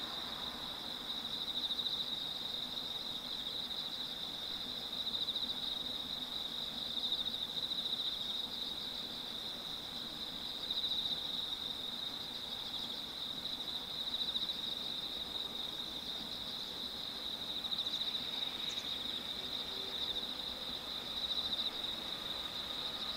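Insects trilling in a steady, high-pitched chorus, with a faint low hum beneath.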